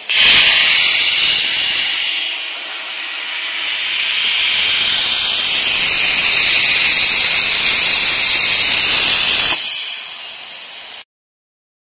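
Loud steady hiss, like escaping gas or air, that starts suddenly and cuts off suddenly about nine and a half seconds in, followed by a fainter hiss for about another second and a half.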